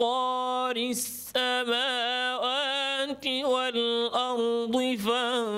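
A man chanting Quran recitation (tajwid), holding long melodic notes with wavering ornaments, with a short breath about a second in.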